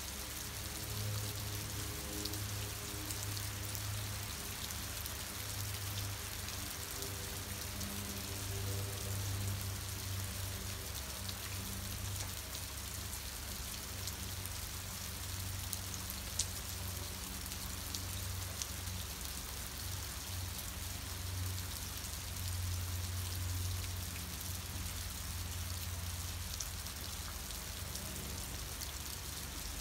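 Steady rain falling and pattering on the platform and station roof, with many small drops ticking. A low hum runs underneath, swelling and fading.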